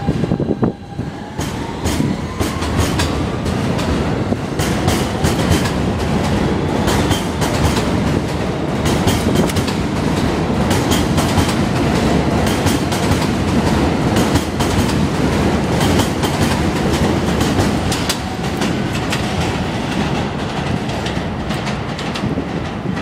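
R160B subway train (Kawasaki cars, Siemens propulsion) pulling out of the station: the traction motors give a whine that rises in pitch over the first few seconds as it accelerates. The cars then rumble past with rapid, irregular clicking of wheels over rail joints.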